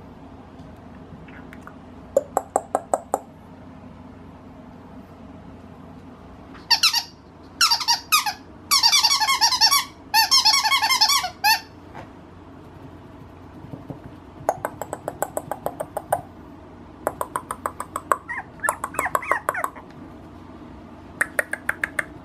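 A squeaky toy squeezed in quick runs of high squeaks, with pauses between the runs. The longest and loudest stretch of squeaking comes about halfway through.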